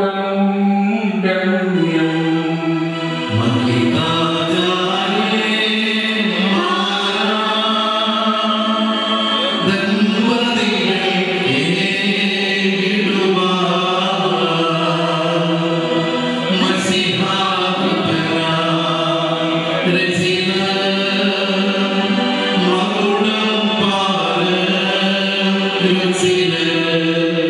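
Liturgical chant: voices singing a slow melody of long held notes that step from pitch to pitch without a break.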